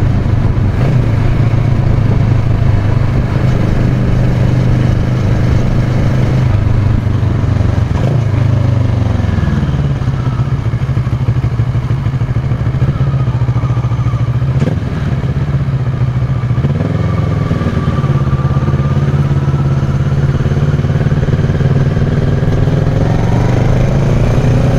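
Kawasaki Versys 650's parallel-twin engine through a Giannelli aftermarket exhaust while riding. It runs steadily, drops in pitch about nine seconds in as the bike slows, then climbs back up through the revs toward the end.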